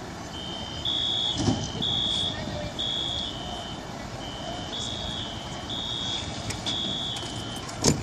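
School fire alarm sounding a two-tone electronic warble, stepping between a high and a low pitch about once a second, over a steady low rumble. A thump about a second and a half in and a sharp knock near the end.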